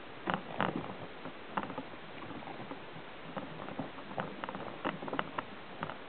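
Irregular light taps and clicks on a metal seed feeder as small birds land and peck at sunflower seeds, a few of them duller knocks, over a steady hiss.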